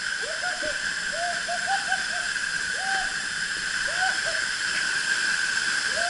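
Waterfall rushing steadily onto rocks and into its pool, with several short pitched calls, each rising and falling, scattered over the first few seconds.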